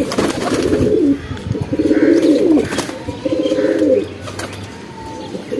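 Domestic pigeons cooing, several low cooing phrases one after another with short gaps between, and a few sharp clicks.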